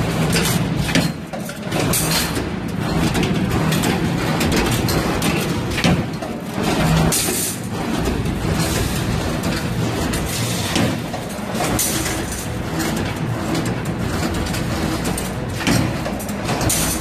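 R6 CNC automatic rebar stirrup bending machine running with a steady loud mechanical noise as it feeds and bends double-strand rebar, with a sharp knock every few seconds as it works the bar.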